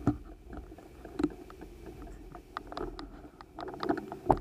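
A bicycle rolling slowly over pavement: irregular clicks and rattling knocks from the bike and camera mount over a low rumble, with a few sharper knocks.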